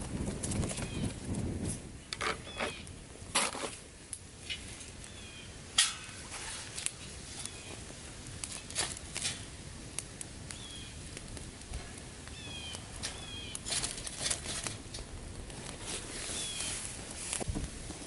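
Small wood campfire crackling and popping, with a rush of air from a hand-held fan being waved at it in the first couple of seconds. A few louder knocks come as a steel grill grate is set over the fire.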